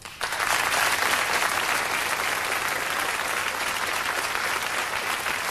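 Studio audience applauding, breaking out sharply just after the start and then holding steady.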